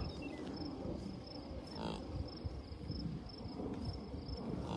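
Insect chirping, likely a cricket, as a steady, evenly spaced series of short high pulses several times a second, over a low rumble of wind on the microphone.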